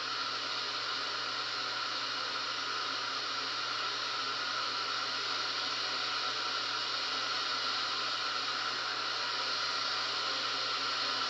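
Steady rush of a waterfall and whitewater rapids, played through a television's speakers and heard in the room.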